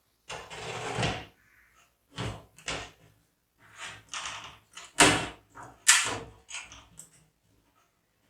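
An irregular run of short knocks and scrapes from hard objects being handled, the loudest two about five and six seconds in, with a longer scraping rustle near the start.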